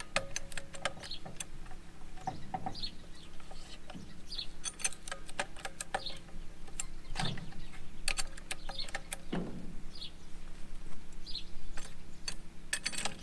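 Trolley jack being worked under a car, giving scattered sharp metal clicks, with a bird chirping every second or two.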